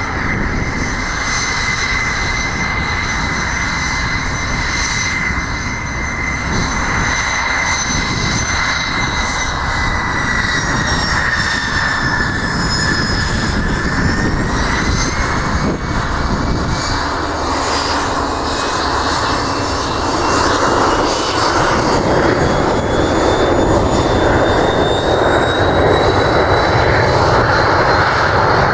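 Cessna Citation C525 business jet's twin Williams FJ44 turbofans whining at taxi power as it lines up on the runway. From about halfway through, the whine climbs in pitch and the noise grows louder as the engines spool up for the takeoff roll.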